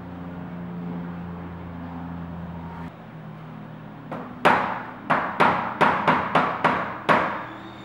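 Non-metal hammer with plastic and rubber faces tapping shims into the ends of a door frame's top rail. About eight sharp knocks in quick succession, starting about four seconds in.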